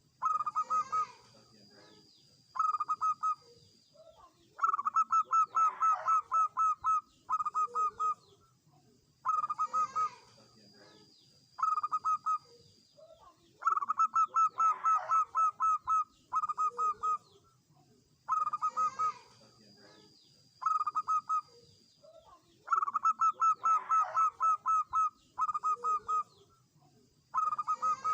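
Zebra dove (perkutut) cooing: short groups of quick pulsing coos every couple of seconds, with a longer run of rapid coos about every nine seconds. Faint high chirping and a steady high tone sit underneath.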